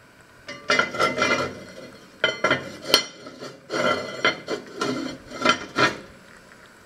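Lid of an enamelled cast-iron Dutch oven being worked onto the pot, scraping and clanking against its rim in several bouts, with one sharp knock about three seconds in.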